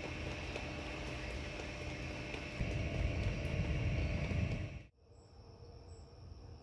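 Stormy night: a steady hiss of rain and wind, with a low rumble swelling about two and a half seconds in. It cuts off abruptly about five seconds in, leaving faint insects chirping.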